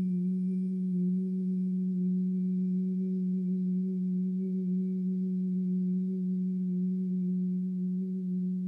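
A steady, low sustained tone with a fainter overtone above it, holding one pitch without a break or a breath.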